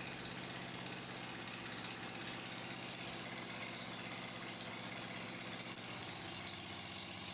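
Steady electrical hum of an arc-welding machine, with evenly spaced pitched lines that hold without change while a steel rod is welded onto a seized flywheel key.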